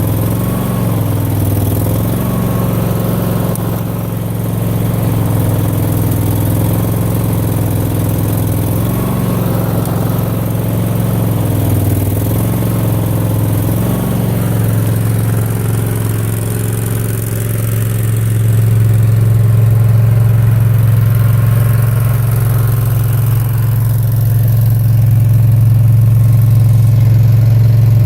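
Mini skid steer's engine running steadily, its pitch dipping and recovering several times in the first half, then running steadier and a little louder in the second half.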